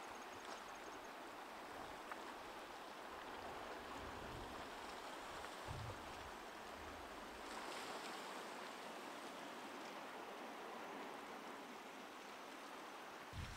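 Steady, even wash of gentle sea surf on a rocky shore.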